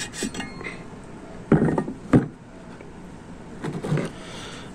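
Knocks and clunks of small engine parts being handled and set down: a heavier thump about one and a half seconds in, a sharp knock just after it, and a few lighter taps near the end.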